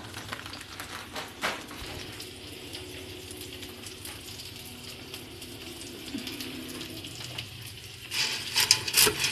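Pansit canton noodles sizzling in a hot metal pot with a steady hiss. A few clicks of a cooking utensil against the pot come in the first seconds, and a burst of louder knocks and scrapes comes near the end as the noodles are tossed.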